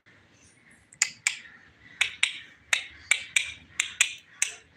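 A series of about ten sharp clicks, irregularly spaced at two or three a second.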